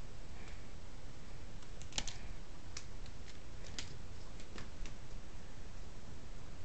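Scattered light clicks and taps from a playing kitten's claws and paws on a plastic chair mat, the sharpest about two seconds in, over a steady low hum.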